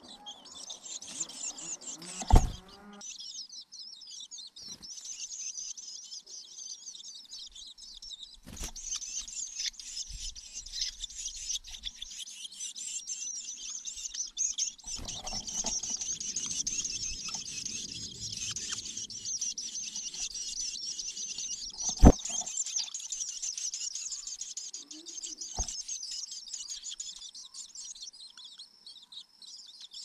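Long-tailed shrike nestlings giving high, continuous begging chirps. Three sharp knocks cut through, the loudest about three-quarters of the way through.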